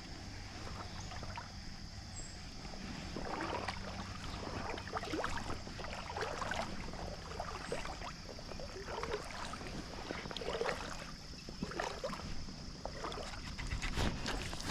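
Shallow river water sloshing and splashing unevenly around a person's legs as they wade, in short irregular surges.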